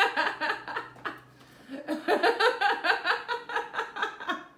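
A person laughing hard in two long bursts of rapid, high-pitched 'ha' sounds, with a short break just over a second in.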